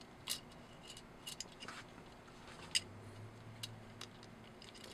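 Faint, scattered clicks and light taps of small metal parts being handled and fitted together: the hammer spring, guide and O-ring of an FX Impact air rifle's hammer assembly. The clearest click comes about a quarter of the way in, and another just past halfway.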